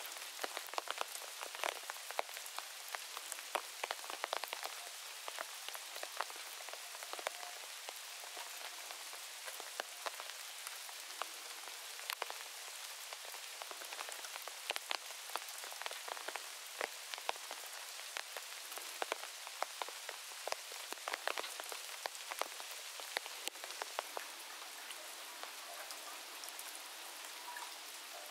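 Steady rain falling: a constant hiss with many sharp, close drop hits throughout.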